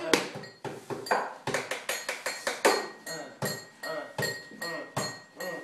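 Hands knocking and slapping a drum beat on a tiled tabletop, sharp raps about three a second in a loose rhythm, with faint voices under it.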